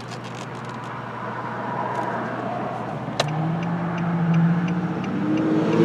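2009 Nissan Frontier's engine, which has a random misfire and lacks power, idling at a stop and then rising in pitch and getting louder as the truck pulls away. A single sharp click about three seconds in.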